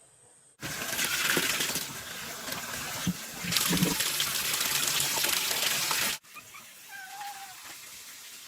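Water running hard from a tap, a loud steady gush that starts abruptly and cuts off after about five and a half seconds. A cat then meows faintly.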